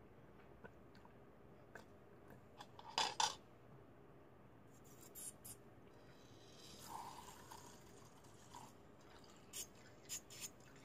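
Homemade slime being worked in a glass bowl with a utensil: faint squishing and scattered sharp clicks of the utensil against the glass, the loudest a quick pair about three seconds in and a few more near the end.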